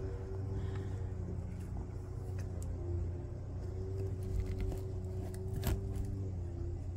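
A steady low mechanical hum with a faint click about six seconds in.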